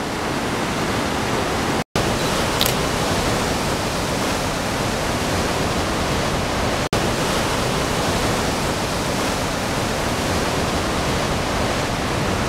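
Nevada Fall's white water rushing over the granite brink in a steady, loud, dense rush of noise. The sound cuts out for an instant twice, about two and seven seconds in.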